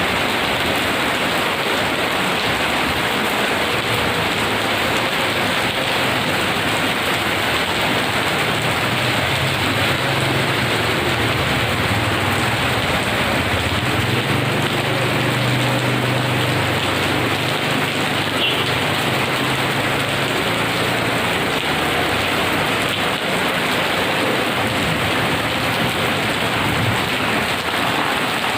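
Heavy rain pouring steadily, with a long low rumble of thunder that builds a few seconds in, is loudest mid-way and fades near the end.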